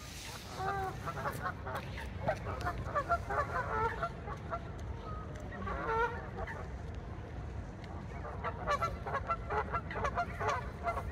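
Geese honking: bursts of many short, rapid calls, with a lull in the middle, over a steady low rumble of wind.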